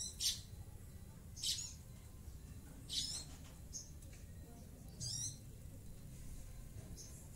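Caged sunbird giving harsh, rapid bursts of high chirping notes, four loud bursts about a second and a half apart, with a couple of fainter single chirps between them.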